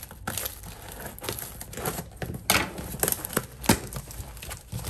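Scissors cutting through plastic packing tape on a cardboard parcel, then the box flaps pulled open with the tape tearing and the cardboard crinkling: a run of irregular sharp crackles and rips.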